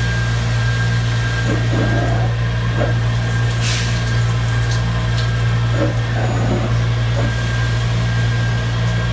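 Walter Woodtronic CNC5 saw blade grinding machine running: a steady deep hum with a thin high whine above it, a short hiss about three and a half seconds in, and a few light clicks as the grinding head works across a circular saw blade.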